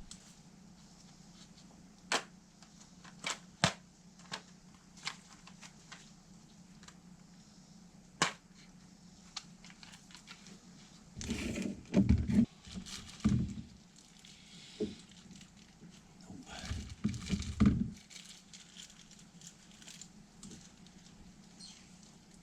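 Small parts being handled at a workbench: a scattered run of light clicks and ticks, then two short spells of rustling and knocking, over a steady low hum.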